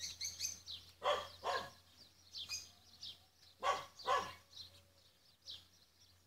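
A dog barking repeatedly in short, sharp barks, several coming in quick pairs about half a second apart.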